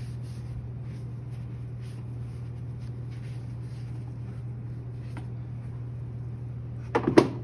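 Sponge wiping faintly around a pottery wheel's splash pan over a steady low hum, broken near the end by a short clatter of hard knocks.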